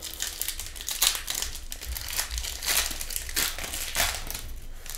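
Foil wrapper of a hockey card pack crinkling as it is torn open and pulled apart by hand: a dense run of irregular crackles.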